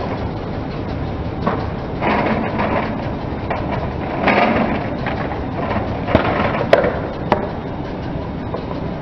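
Car rolling slowly on gritty concrete, its tyres crunching grit over a low engine hum, with three sharp clicks in the second half.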